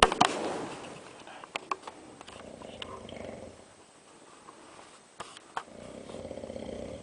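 A man snoring heavily: three rattling snores on the in-breath, about three seconds apart, with quieter breathing between. A loud click at the very start and a few sharp clicks later.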